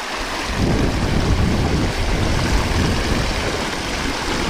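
Water rushing over a low concrete spillway in a shallow river, with splashing from feet wading through the water and a hand net scooping along the spilling edge. A rough low rumble runs under it.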